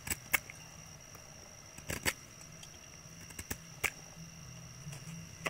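About six sharp clicks and knocks at uneven intervals, two close together at the start and another pair about two seconds in, over a steady faint high-pitched whine and a low hum.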